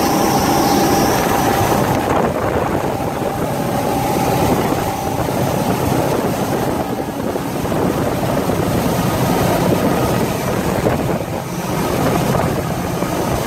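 Three outboard motors driving a 38 ft sportfish boat at planing speed: a steady engine drone mixed with rushing water from the hull and wake and wind noise.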